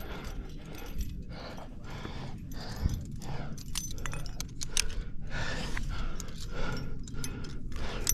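A quickdraw's metal carabiners clinking and jangling as it is taken up and clipped to a bolt hanger, in a cluster of sharp clicks about four seconds in and again near the end. Over this runs a climber's hard rhythmic breathing.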